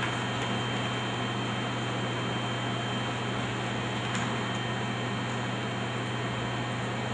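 Steady low electrical hum under a constant hiss from equipment running in the room, with a thin steady high tone; a faint click about four seconds in.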